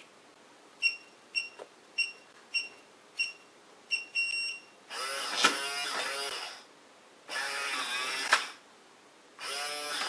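Keypad beeping as a six-digit code is keyed in: six short two-tone beeps, then a longer beep. Then the Defiant electronic deadbolt's motor whirs three times, about a second and a half to two seconds each, driving the bolt as the lock sets its door direction.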